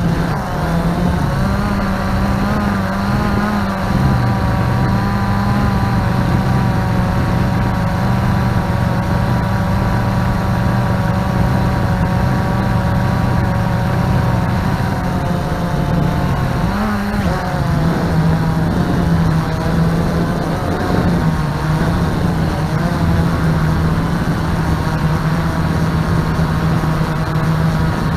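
Multirotor drone's propellers humming steadily while it flies, the pitch shifting and wavering several times as the motors change speed.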